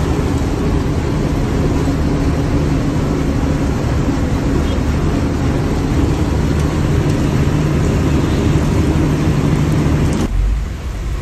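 Truck engine running with road noise while driving, heard from inside the cab; the steady sound cuts off abruptly near the end.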